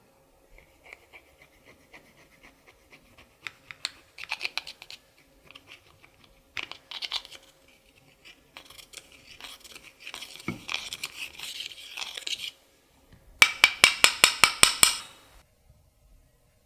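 Clear slime mixed with makeup being squished and worked by hand. It gives wet crackles and clicks, then a longer stretch of dense crackling. Near the end comes a quick run of about ten loud clicks, several a second.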